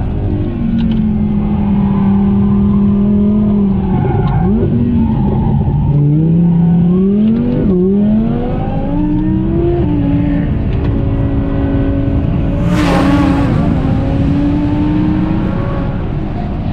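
Audi R8's V10 engine driven hard on a track lap, its revs climbing and dropping sharply with fast gear changes and braking, about four and eight seconds in and again later. A brief rushing noise cuts in about thirteen seconds in.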